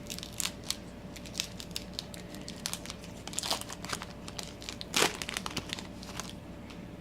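Crinkly plastic and foil trading-card packaging being handled, a run of short sharp crackles with a louder crackle about five seconds in.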